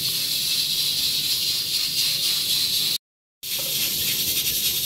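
A steady high hiss at an even level, broken by a short moment of silence about three seconds in.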